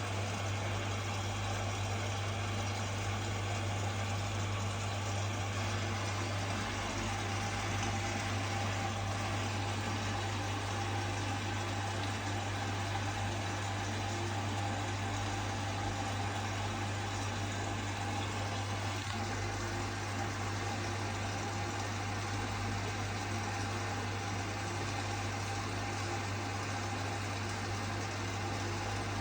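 Washing machine running a rapid wash cycle: a steady low hum with a faint constant whine above it.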